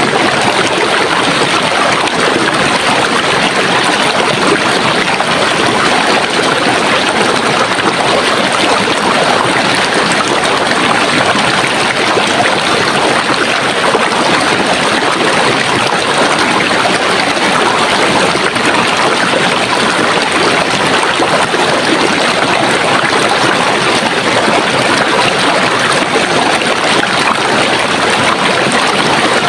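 Running water from a stream, flowing steadily with an even rushing sound.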